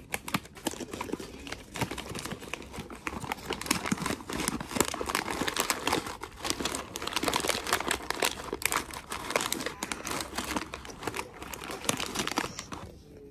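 Snack packaging crinkling as it is handled close to the microphone, a dense, irregular crackle that stops near the end.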